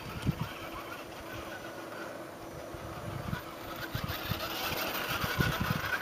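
Radio-controlled 1/10-scale Axial SCX10 crawler's electric motor and gear drive whining as it crawls over rock, growing louder over the last few seconds as it comes closer. A few low thumps near the start.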